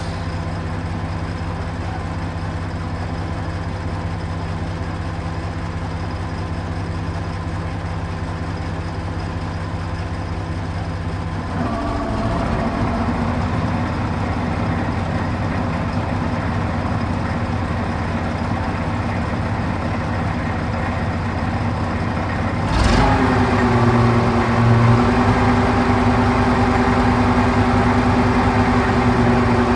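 Truck crane's engine running steadily while unloading concrete blocks; its speed steps up about a third of the way in, then jumps sharply with a thump about two-thirds in and holds at a higher steady pitch under load.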